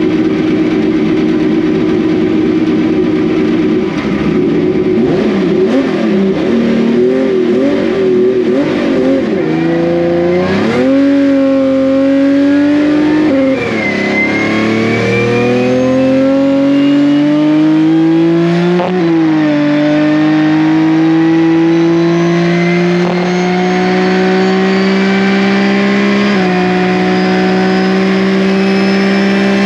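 The hand-built 6-litre naturally aspirated V12 of a land-speed lakester on a full-throttle run, heard from inside the cockpit. It holds steady revs at first, its pitch wavers through the launch, then it climbs through the gears: three upshifts, each a brief drop in pitch before the revs rise again, ending in a long slow climb.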